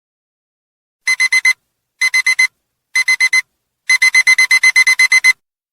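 Digital alarm-clock beeping signalling that the countdown has run out: short, high-pitched electronic beeps, starting about a second in, in three quick groups of four, then a longer fast run of about a dozen beeps.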